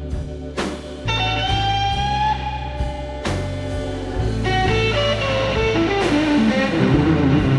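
Instrumental blues music: electric guitar playing a lead with bent, sliding notes and a run of falling notes over bass and sparse drums.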